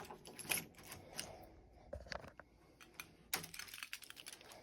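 Scattered light clicks and taps of small metal door-lock parts being handled, as the old lever lock's castle nut and trim come off.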